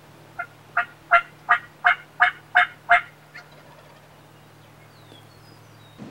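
Wild turkey yelping: a run of about nine evenly spaced yelps at roughly three a second, starting soft, loudest in the middle and trailing off with a faint last note.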